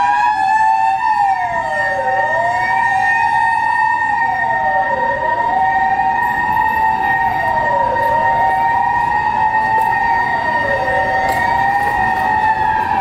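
Emergency vehicle sirens: one siren wails, dipping and rising in pitch about every three seconds, over a second siren held on two steady tones that alternate high and low.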